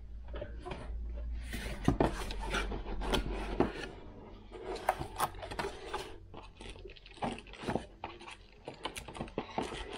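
Shipping box and packaging being opened and handled by hand: irregular scraping and rubbing with many sharp clicks and knocks.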